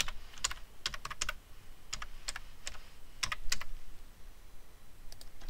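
Typing on a computer keyboard: a string of irregular keystrokes that stops about three and a half seconds in.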